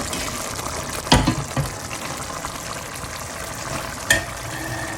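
Choley (chickpea curry) gravy cooking in a pan with a steady sizzle, and a stirring spoon knocking against the pan twice, sharply about a second in and again near the end.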